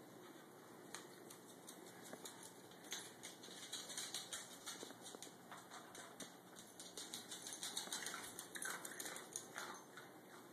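Dachshund puppy's claws clicking on hard floors as she trots about, mixed with light crunching and rattling of kibble as she picks food out of her bowl; fast, irregular ticks, busiest in the second half.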